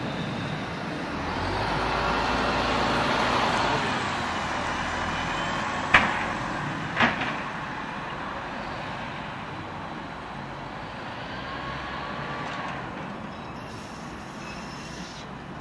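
AnsaldoBreda Sirio light-rail tram rolling away along the track, its running noise swelling and then fading as it recedes, with faint wavering tones over it. Two sharp clacks about a second apart near the middle are the loudest sounds.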